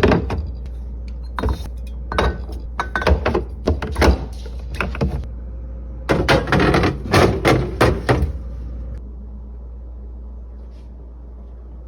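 Food containers and jars being handled and set down on refrigerator shelves: a run of knocks, clunks and light clinks that stops about nine seconds in, leaving a steady low hum.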